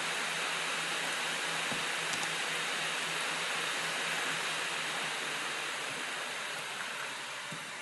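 Steady hiss of background noise with a faint low hum under it, easing off slightly near the end.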